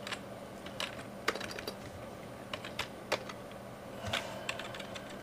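Computer keyboard being typed on: scattered single keystrokes and short runs of sharp key clicks, over a faint steady hum.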